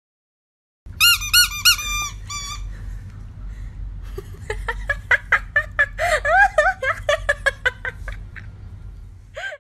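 A quick run of about six high squeaks, each rising and falling, starts about a second in. After a short pause comes a longer string of shorter squeaks mixed with clicks.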